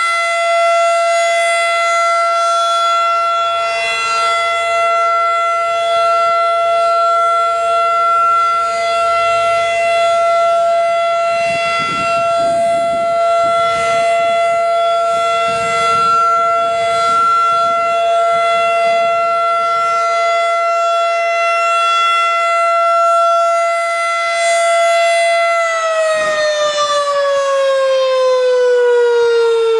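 Federal Signal 2001-DC rotating electromechanical tornado siren sounding a steady tone during its weekly test, its loudness rising and falling gently. About 26 seconds in it begins winding down, the pitch falling steadily.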